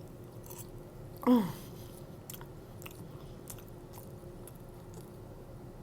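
Chewing and mouth smacking on cheesy pizza fries, with small wet clicks throughout, and one short burp with a falling pitch about a second in.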